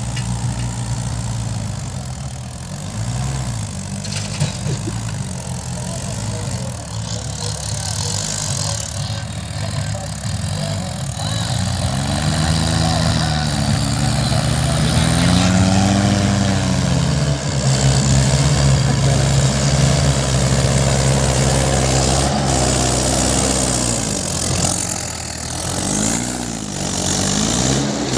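Mahindra tractor diesel engines, among them a 585 XP Plus, running steadily while pulling earth scrapers through loose soil. The engine note swells and drops back a few times as the drivers rev up and ease off, once in the middle and again near the end.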